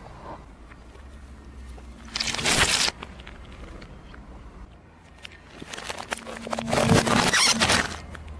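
Car tyre crushing toys, with the audio played backwards: a short loud crushing noise about two seconds in, from the rubber ducks, that cuts off sharply, then a longer crackling, squelching noise from a mesh gel stress ball that builds from about five and a half seconds and stops near the end. A low car-engine hum runs underneath.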